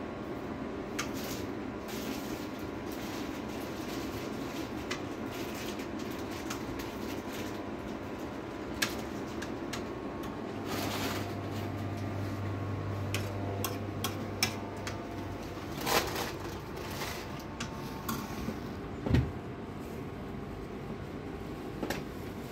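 Cardboard boxes of biscuits being handled and stacked on a display shelf: scattered light knocks and clicks over a steady background hum, with one louder thump about nineteen seconds in.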